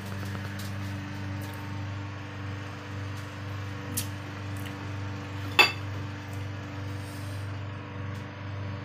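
A steady low hum, with a light click about four seconds in and one sharp clink of crockery a little past the middle.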